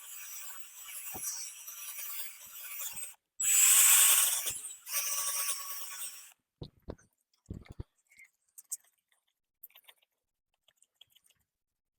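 Power drill spinning a sanding attachment against a headlight lens in a few short runs, stopping and restarting, the second run the loudest. After about six seconds it stops, leaving only a few light clicks and knocks from handling.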